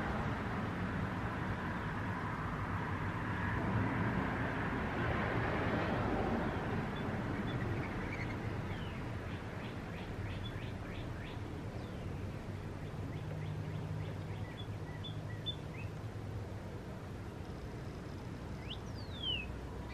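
A steady rush of passing road traffic that fades over the first several seconds, then small birds chirping and twittering outside, with a couple of quick falling whistles near the end.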